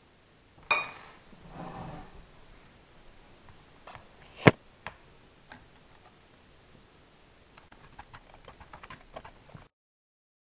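Small parts of a nitro RC car being handled: a short rattle, then one sharp click, then a run of light clicks and taps. The sound cuts off abruptly near the end.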